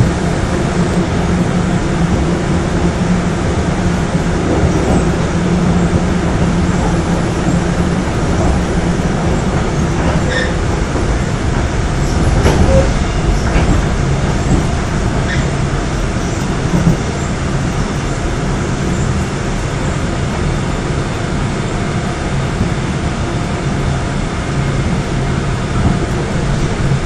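Running noise heard inside the passenger car of a Korail 3000-series electric train on Seoul Subway Line 3 at speed: a steady rumble of wheels and running gear with a hum underneath. A few light ticks come partway through.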